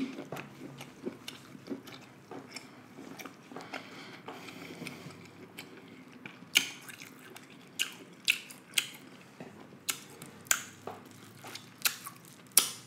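Close-miked chewing of seafood-boil food, with wet mouth clicks and smacks coming irregularly and more often in the second half. Near the end comes a bite into corn on the cob.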